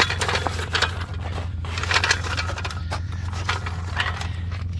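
Floor jack being pushed and rolled over crusted snow and ice, its wheels and frame giving a string of short crunches and scrapes, over a steady low hum.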